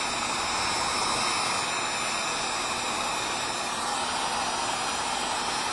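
Wagner electric heat gun running steadily, a constant rush of blown hot air with no change in level. It is heating a hand-wound subwoofer voice coil to set the Loctite on its windings.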